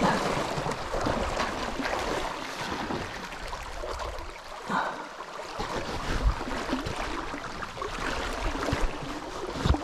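Shallow river current rippling and splashing close by, as a steady rushing wash. A couple of low knocks come through, one past the middle and one near the end.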